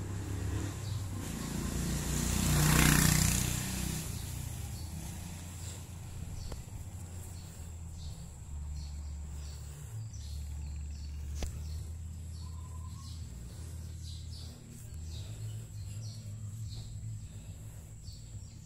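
Street ambience with a steady low hum. A vehicle passes about two to four seconds in, rising and fading, and faint bird chirps come through.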